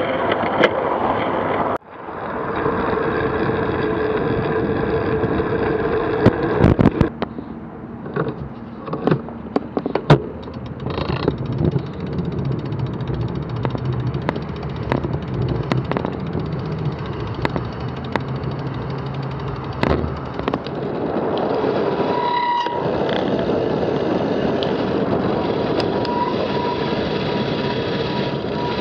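Road and traffic noise heard from a bicycle-mounted camera: steady wind and tyre noise with cars passing, broken by sharp clicks and knocks, in several short clips that change abruptly.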